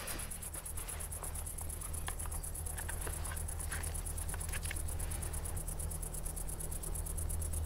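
Outdoor film ambience of insects chirring in a fast, even pulse over a steady low hum, with a few faint scattered ticks in the middle.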